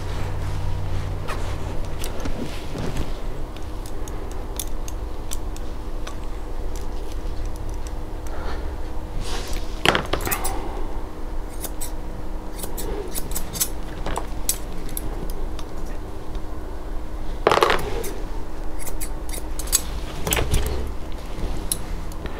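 Grooming shears snipping through dog hair: irregular runs of short metallic clicks, with a few louder clinks, over a steady low hum.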